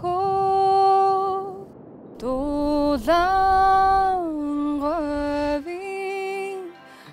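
Soundtrack music: a woman's voice singing three long held notes, sliding up into the second one, with short breaks between the phrases.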